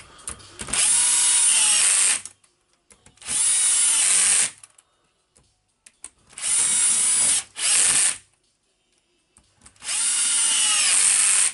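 Cordless drill/driver running in four short bursts, each about one and a half seconds, with pauses between: four screws being driven in to fasten a rotary hammer's gear casing to its motor housing.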